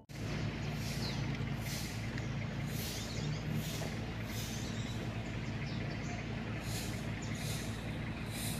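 Steady low engine hum, with a soft hiss pulsing roughly once a second over it.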